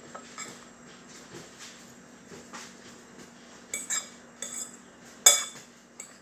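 Metal utensil stirring and tossing couscous salad in a glass bowl: soft scraping at first, then a series of sharp clinks against the glass in the second half, the loudest about five seconds in.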